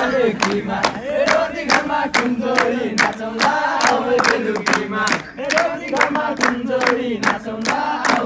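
Group of young men singing a Nepali dohori song together in chorus, over a sharp beat keeping time about three times a second.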